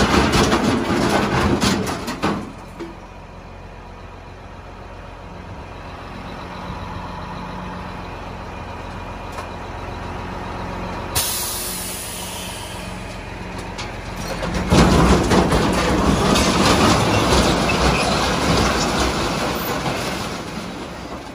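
Loud clatter in the first two seconds, then a Freightliner dump truck's diesel engine runs steadily while the hydraulic hoist raises the bed, with a sudden burst of air hissing about halfway through. About three-quarters of the way in, the load of scrap iron slides out of the tipped bed with a loud rushing clatter that dies down near the end.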